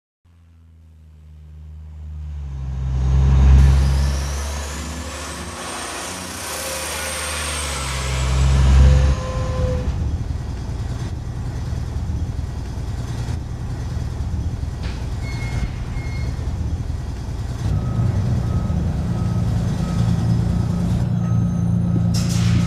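City bus sounds: a deep engine rumble swells twice as the bus pulls away, with a high whine rising and falling over it. The bus then settles into a steady running rumble, with a row of short beeps near the end.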